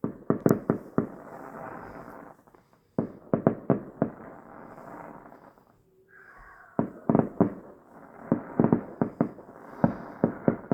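Distant fireworks going off in three volleys of rapid bangs: one at the start, one about three seconds in, and a longer one from about seven seconds to near the end. A low rumble runs between the volleys.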